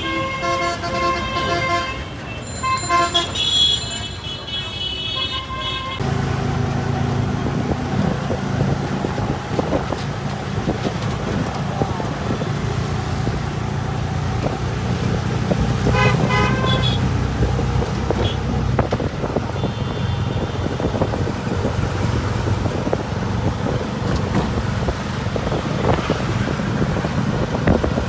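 Vehicle horns honking in short blasts. About six seconds in, the sound changes abruptly to a steady engine drone, with another brief horn toot near the middle.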